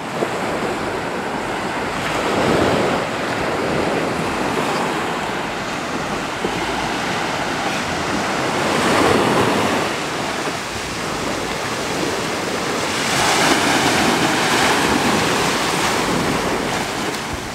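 Small surf breaking and washing up a sandy beach, with wind on the microphone. The wash swells louder three times: about two seconds in, in the middle, and for a couple of seconds toward the end.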